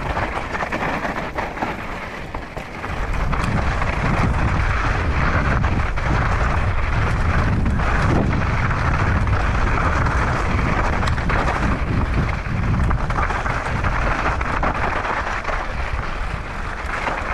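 Mountain bike descending a loose, rocky trail: wind buffeting the microphone and tyres rattling over stones and gravel, with many small knocks and clicks. The low rumble grows much louder about three seconds in.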